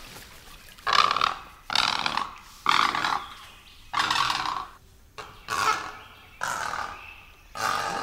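Great egret calling: a series of about eight harsh, rasping croaks, each about half a second long and just under a second apart.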